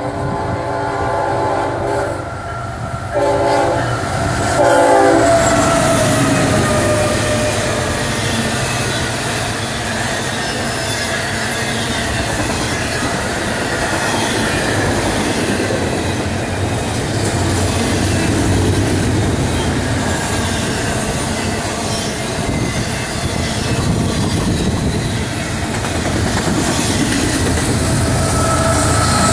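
CSX freight locomotive horn sounding a chord in a few blasts over the first five seconds as the train approaches. Then a double-stack intermodal train passes close by: loud steady rolling of steel wheels on rail with clickety-clack over the joints and some wheel squeal. A mid-train GE ES44AH locomotive goes by near the end.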